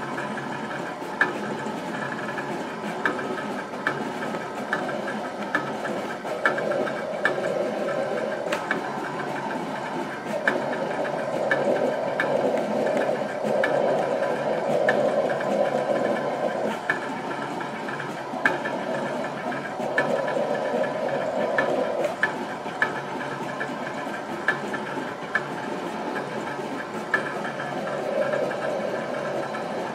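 Portable 15-inch cutting plotter running through a rubber sandblast-stencil job: a mechanical whirring from the cutter carriage and feed rollers that swells and drops back in stretches of a few seconds, over frequent small clicks.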